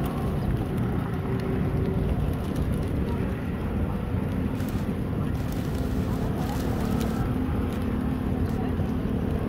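Street ambience by a busy square: steady traffic noise with an engine hum setting in about two seconds in, under background voices and the wing flaps of a large flock of feral pigeons taking off and landing.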